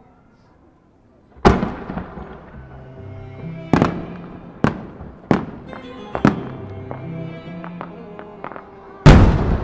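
Japanese triple-core chrysanthemum aerial shells (sanjū-shin henka-giku) bursting overhead: a loud sharp bang about a second and a half in, several more bangs with lighter crackling between them, and another big bang near the end. Background music with sustained notes plays underneath.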